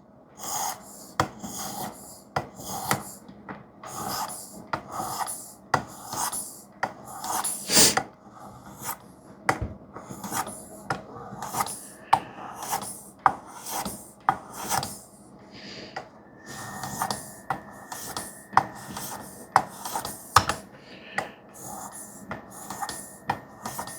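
Knife edge stroked again and again across a wetted ceramic sharpening stone of a Work Sharp guided sharpening system: a steady run of short scraping strokes, about one or two a second, during the fine honing stage.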